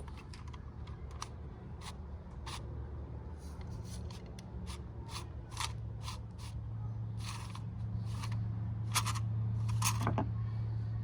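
Lawn mower recoil starter being slowly released, its spring-loaded pulley winding the new pull cord back in with irregular light clicks and scrapes, about two a second. A steady low hum comes in about a third of the way through.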